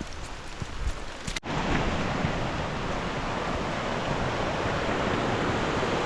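Rain with small scattered taps, then after an abrupt cut about a second and a half in, a louder, steady rush of falling water from a cascade.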